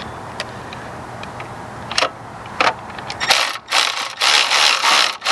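Ratchet wrench clicking as the throttle body's screws are tightened down: a few single clicks at first, then from about three seconds in, loud fast runs of ratcheting.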